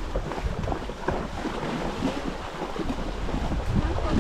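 Irregular splashing and sloshing of river water as it is waded through, with wind rumbling on the microphone.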